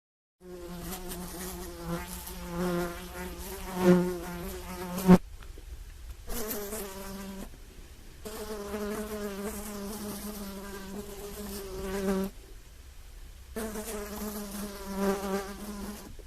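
Honeybee buzzing in flight, a steady droning buzz that comes in three long passes with short breaks between them, plus a sharp click about five seconds in.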